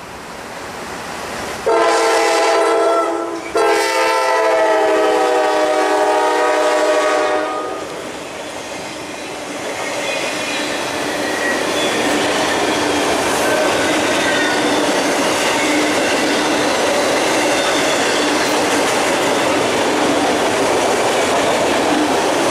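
Norfolk Southern GE C40-9W diesel locomotive's air horn sounding twice, a short blast then a long one of about four seconds. Then comes the steady rolling noise and wheel clatter of empty autorack cars passing close by.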